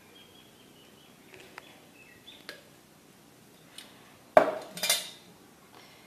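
Stainless steel kitchenware clattering: a sharp metallic knock about four seconds in, then half a second later a second, ringing clatter.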